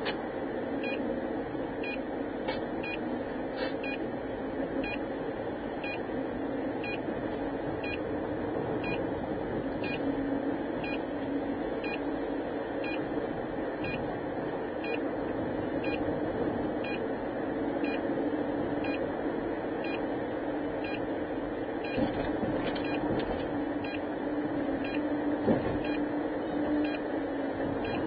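Steady drone of a car's engine and tyres heard from inside the cabin through a dashcam microphone, with faint regular ticks about one and a half times a second. Two brief thumps come near the end.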